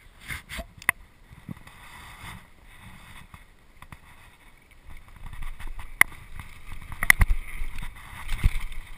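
Mountain bike ridden down a rough dirt trail, heard from a camera mounted on the rider: rushing tyre and wind noise with the frame and chain rattling. Sharp clacks and thuds over bumps come thicker and louder from about five seconds in.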